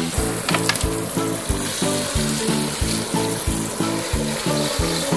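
Water hissing from a garden hose's spray nozzle and splashing onto a foam-covered plastic ride-on toy car, over background music with a steady beat.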